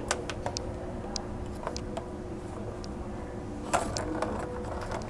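Kitten pawing at a plastic ball-in-track cat toy: scattered light clicks and taps of paw and ball on the plastic track, with one louder clatter about three and a half seconds in. Underneath is a steady low background hum.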